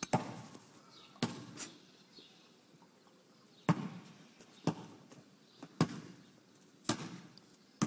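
Basketball dribbled on paving: single sharp bounces about once a second, with a pause of about two seconds in the middle.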